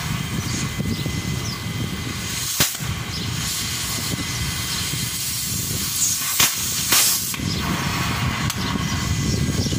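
Cutting torch hissing steadily as it cuts through a steel plate, with a few sharp pops, over a low steady rumble.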